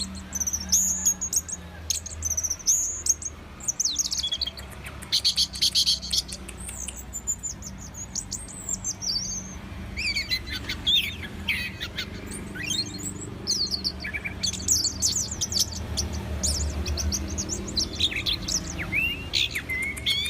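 Orange-headed thrush singing a long, varied song of fast whistled phrases, trills and sharp chattering notes, over a faint low hum.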